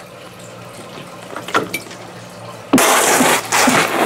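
A person spluttering a mouthful of water out through the lips. It starts with a few small wet mouth clicks, then comes two loud hissing sprays about three seconds in and a short one at the end.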